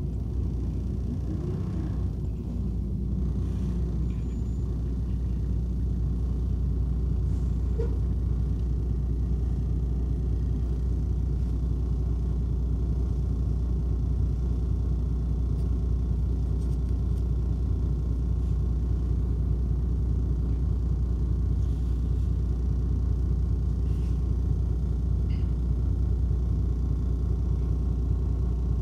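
Steady low rumble of a city bus's engine and running gear, heard from inside the passenger cabin.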